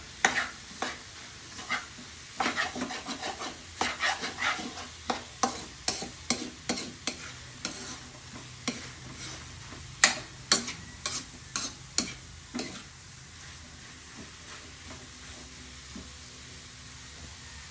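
Sliced bitter gourd being stir-fried in a metal wok: a spatula scrapes and knocks against the pan over a steady sizzle. The stirring stops about two-thirds of the way through, leaving only the sizzle.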